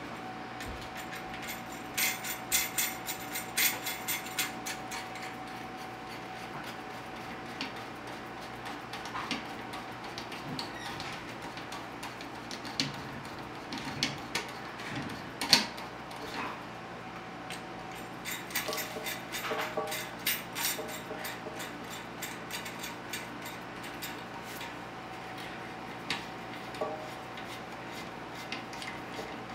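Screwdriver turning the screws of a bidet mounting plate down onto a porcelain toilet bowl: clusters of small clicks and scrapes that come and go several times, over a faint steady hum.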